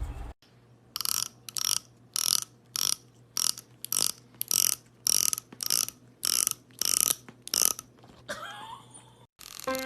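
Teeth of a comb strummed with a fingernail, about a dozen sharp rasping strokes at an even pace of under two a second: the sound used to make cats gag. A short wavering sound follows near the end.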